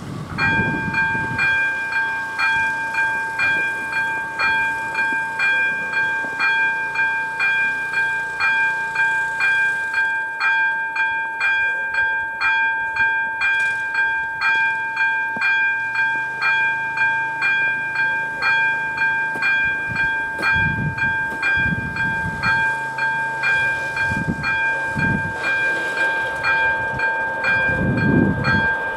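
Electronic level-crossing bell (AŽD ZV02) starting up as the crossing is activated for an approaching train, then ringing steadily at about two strikes a second, each strike a bright ringing tone.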